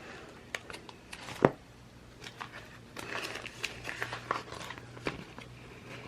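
Paper and sticker sheets being handled on a desk: light crinkling and rustling with scattered small clicks, and one sharper tap about one and a half seconds in.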